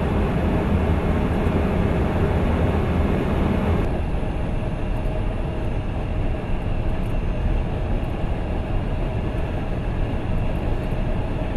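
Steady rushing cockpit noise of a KC-10 Extender in flight: airflow and engine noise on the flight deck. About four seconds in, the sound turns abruptly duller as the higher hiss drops away.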